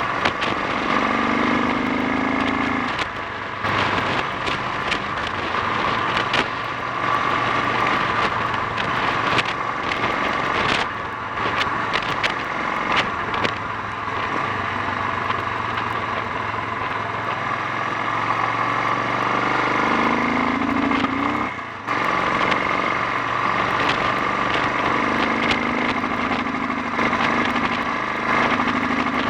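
Honda XL 350 single-cylinder four-stroke engine running as the bike is ridden, the revs rising twice and the throttle closing briefly just after twenty seconds in.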